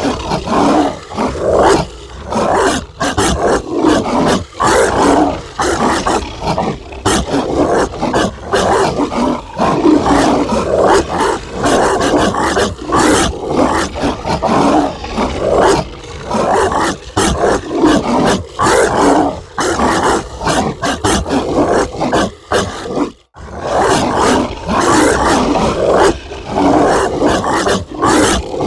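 Zombie dog barking sound effect: harsh, rough barks in rapid, overlapping bursts that go on without pause, broken by one short gap about 23 seconds in.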